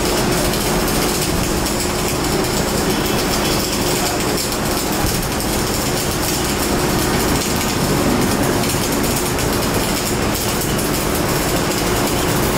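Wire-feed (MIG) welding arc burning continuously, a steady frying crackle over a faint steady hum.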